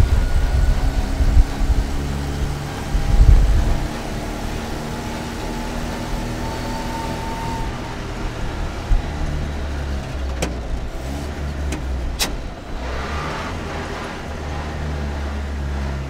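Renault R2067 Goelette truck driving, its engine running steadily, with heavy low thumps in the first few seconds and two sharp clicks about ten and twelve seconds in.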